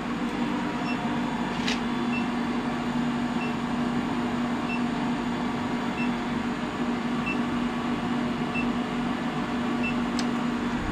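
Induction heater running as it heats a steel bar in its flexible wand coil: a steady low hum, with faint short high beeps repeating about every 1.3 seconds. There is a single click about two seconds in.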